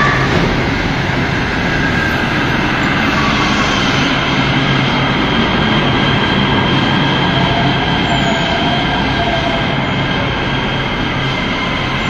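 LA Metro light-rail train moving alongside an underground station platform: a loud, steady rumble of wheels on rail with several high, steady tones over it.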